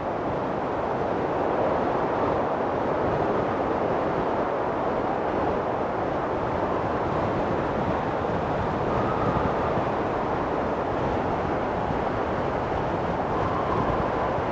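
Strong wind blowing steadily across the microphone, a dense rushing and buffeting noise.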